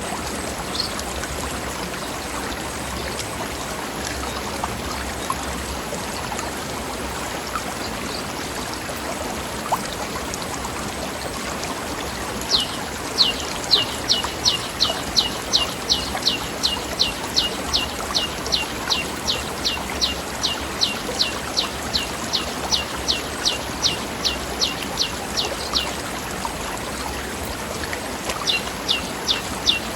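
A forest stream flowing steadily over rocks. Partway through, a bird joins in with a long run of quick, sharp down-slurred notes, about three a second, lasting some thirteen seconds. The same notes start again near the end.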